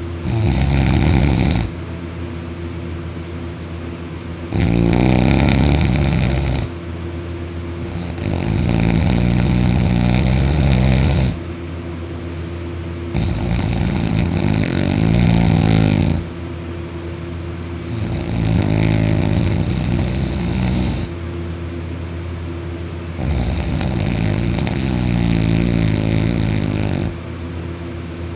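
Very loud snoring from a sleeping man: six long snores, each lasting two to four seconds and coming every four to five seconds, with a lower, steady sound between them.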